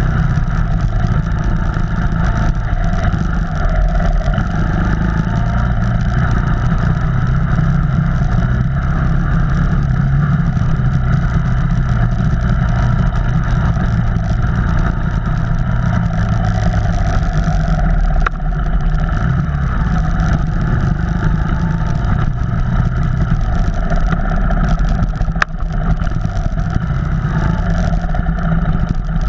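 Off-road vehicle's engine running steadily as it drives along a trail, with two brief sharp knocks in the second half.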